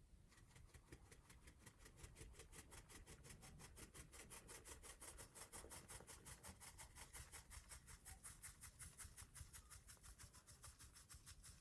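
Hand whisk beating a mixture in a mixing bowl, faint, with quick, even, rhythmic strokes that keep up a steady pace.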